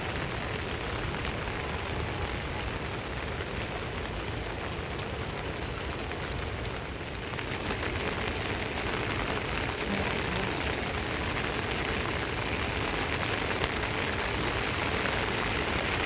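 Steady rain falling, growing a little heavier from about halfway through.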